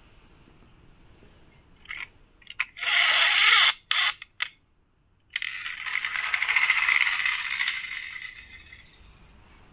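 Pull-back motor of a die-cast toy jeep: a rattling wind-up about three seconds in as the car is dragged back across the tile floor, a few short clicks, then a whirring run from about five seconds in that fades as the car rolls away.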